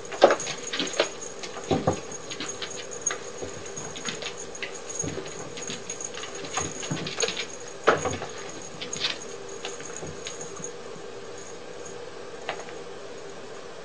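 A cat scampering and pouncing on a hard floor, its paws and claws making scattered quick scuffs, taps and knocks that thin out over the last few seconds. A steady faint hum runs underneath.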